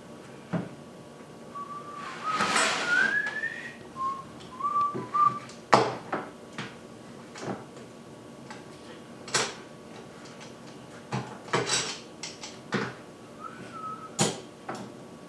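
A person whistling a few short, wavering snatches of tune, with scattered sharp knocks and clicks of boards and clamps being handled.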